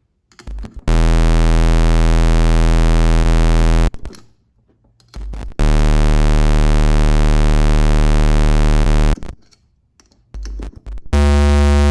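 The three analog oscillators of a DIY triple VCO module sound one after another, each a steady low tone lasting about three seconds. Short clicks come between the tones as a patch cable is plugged into the next output jack. All three oscillators are working.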